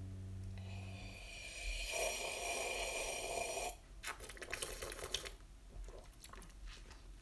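A person drinking from a glass. A low hummed note fades out in the first second, then a continuous sip of about three seconds, then a quick run of gulping and swallowing clicks around four to five seconds in.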